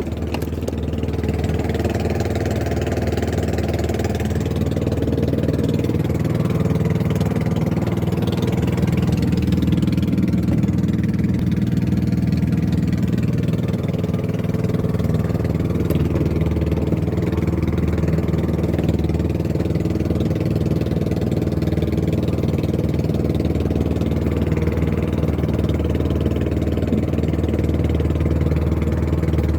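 A small boat engine running steadily at an even speed.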